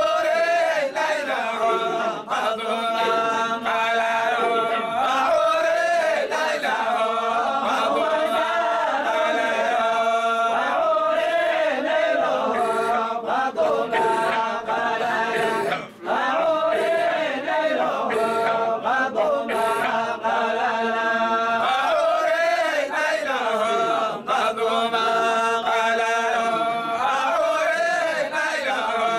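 Group of men chanting a Sufi dhikr together in the Zaylici style, long held notes sung in unison, with a brief break for breath about halfway.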